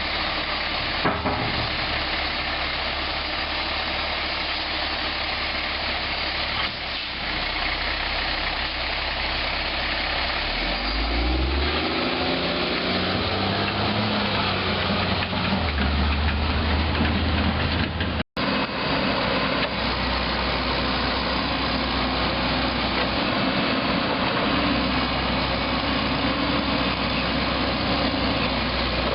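Heavy work vehicle's engine running steadily, revving up a little before halfway and then holding at a higher speed. The sound cuts out for an instant a little past halfway.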